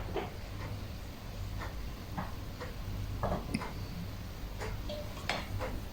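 Faint, irregular light clicks and taps of cooking utensils against a pot, over a low steady hum.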